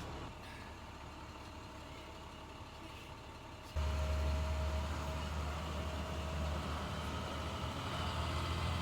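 Shuttle bus engine running with a low rumble, heard up close; about four seconds in it abruptly gets much louder, with a steady whine over the rumble.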